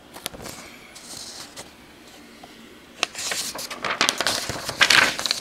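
Printed paper sheets being handled and turned: a few sharp clicks, then louder crackling rustles from about three seconds in.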